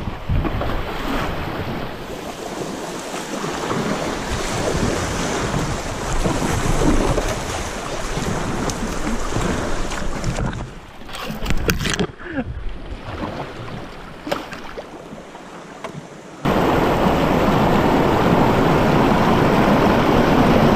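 Rushing, splashing river water with wind buffeting the microphone. A few sharp clicks come in a quieter stretch, then about sixteen seconds in the sound jumps suddenly to a louder, steady rush.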